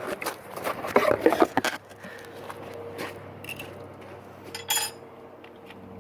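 Knocks and rubbing of a phone being handled and set down in a box, over about the first two seconds, then a faint steady hum and a single metallic clink near the end.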